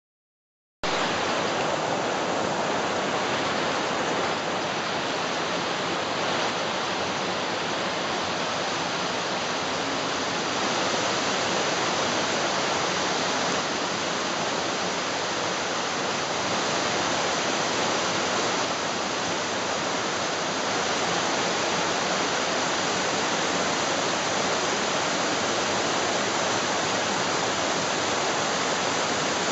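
Waterfall cascading over rock: a steady rushing of water that starts abruptly about a second in.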